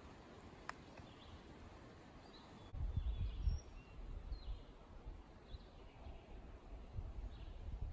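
Birds chirping faintly in short calls, with a single sharp click under a second in. From about three seconds in, an irregular low rumble of microphone noise comes and goes and is the loudest sound.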